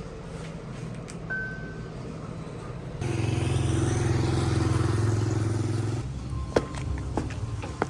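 A motor vehicle's engine running steadily, heard as three short clips joined together, the middle one louder. A few sharp clicks come near the end.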